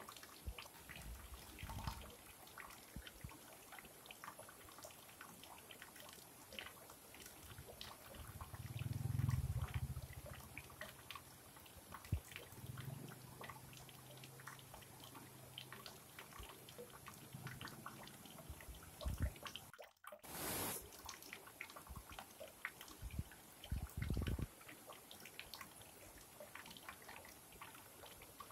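Faint trickling and dripping of a small rocky stream with little waterfalls, made up of many tiny splashes and ticks. Low rumbles break in a few times, the loudest about a third of the way in.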